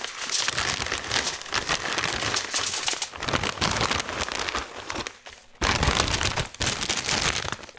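Plastic Cheetos snack bag crinkling as it is tipped and shaken out, the crunchy pieces pattering onto a foil-lined sheet pan. The rustling stops briefly a little after five seconds in, then resumes.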